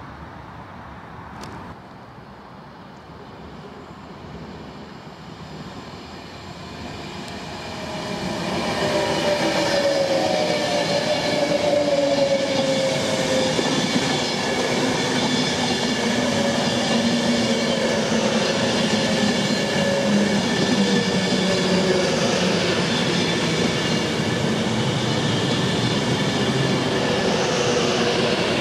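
Virgin Trains electric express passenger train approaching and running through the station at speed. The noise builds for the first several seconds, with one sharp click early on, then turns into a loud, steady rush of wheels on rail with a slowly falling whine as the carriages pass.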